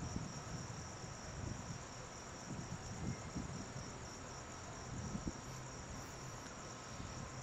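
Crickets trilling steadily in a continuous high chorus, over a low, uneven rumble.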